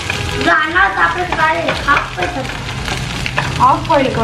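Scrambled eggs sizzling in a non-stick frying pan, stirred and scraped with a wooden spatula in short repeated strokes. Voices come through briefly over it, about half a second in and again near the end.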